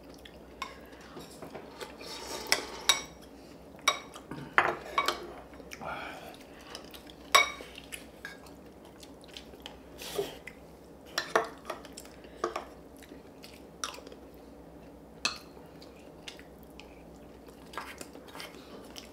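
Cutlery clinking and tapping against bowls and plates while eating: irregular sharp knocks about a second or two apart, a few of them ringing briefly.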